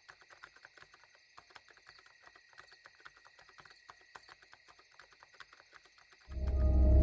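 Rapid, irregular clicking of laptop keyboard typing over a steady background of chirping crickets. Near the end a loud, deep, ominous music swell comes in.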